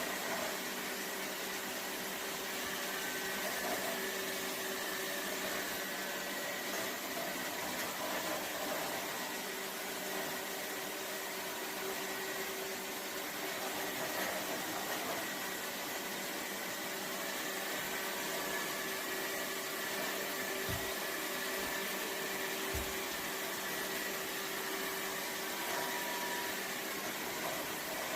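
Lefant M330 Pro robot vacuum running, a steady whir of its suction fan and brushes with a faint steady hum. Two brief low thuds come about two-thirds of the way through.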